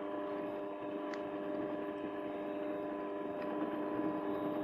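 Variable speed mini lathe, driven by a small DC motor, turning steel at its minimum speed of about 80 RPM with a high-speed steel tool cutting: a steady hum with several held tones over a rough cutting noise.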